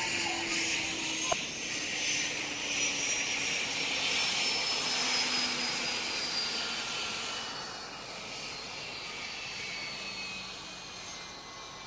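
Jet aircraft engine whine with its pitch sliding slowly down as the sound fades away.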